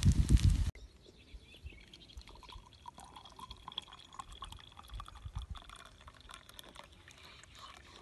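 Tea poured from a metal teapot into a ceramic mug, a thin stream trickling in quietly. It follows a loud rush of noise that cuts off under a second in.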